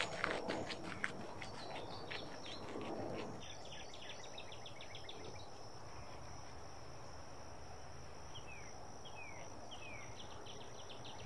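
Woodland ambience: a steady high-pitched insect drone, with a quick run of short bird chirps a few seconds in and three short down-slurred bird calls near the end.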